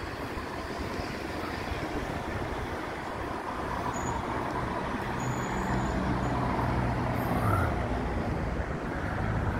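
A motor vehicle passing on the road with a low engine drone, building about halfway through and loudest near the end, over a steady wash of traffic noise.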